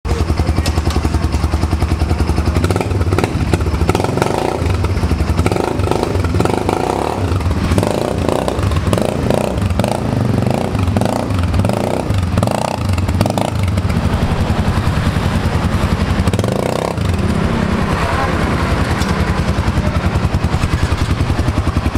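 Utility ATV engine running with a steady pulsing beat, with a string of short louder bursts through the middle as the quad is ridden.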